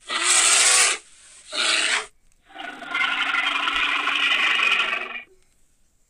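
Brown bear growling three times: two short growls, then one long growl lasting nearly three seconds.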